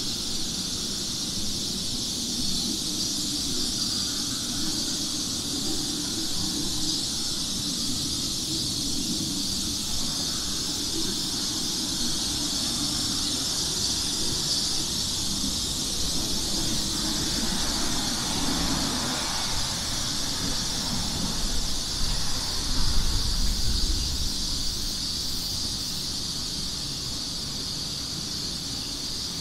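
Steady, high-pitched drone of a summer insect chorus, unbroken throughout. A low rumble underneath swells briefly about twenty-two seconds in.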